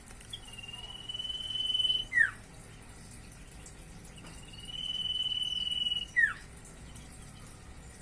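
Common iora singing: two long, level whistled notes, each swelling in loudness and ending in a quick falling note, about two seconds apart.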